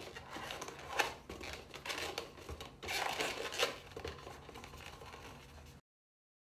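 Hands rubbing and pressing an inflated latex twisting balloon shaped into a heart, a dry scraping, crinkly handling sound with a few sharper touches. The sound cuts off abruptly near the end.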